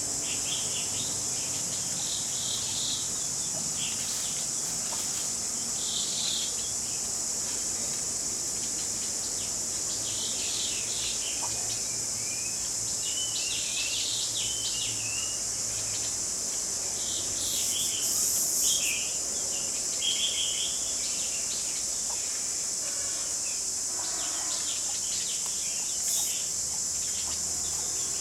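A steady, high-pitched drone of insects such as crickets, with short bird chirps and calls coming and going throughout.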